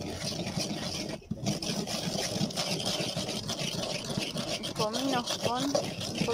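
Stone pestle grinding cumin and salt in a glazed clay bowl: continuous rough scraping and grating strokes, with a short pause about a second in. A brief wavering voice is heard about five seconds in.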